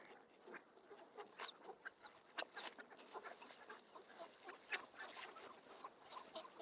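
Ducks on the pond calling softly, in a string of short, irregular calls.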